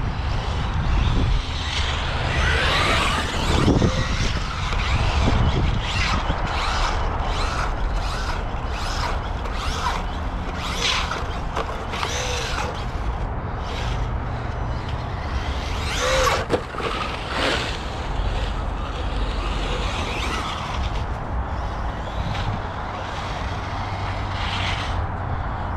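Electric RC monster truck being driven: its brushless motor and drivetrain running in short repeated bursts of throttle, with tyres scrabbling on the ground over a steady low rumble.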